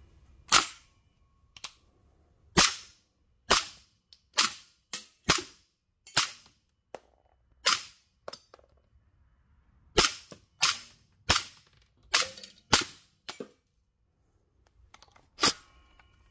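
Single gunshots from an FGC9 MkII 9mm carbine fired one at a time into a bullet trap: about sixteen shots, irregularly spaced from half a second to two seconds apart. The carbine is being test-fired with its home-made barrel, whose too-tight bore has been lapped after signs of over-pressure.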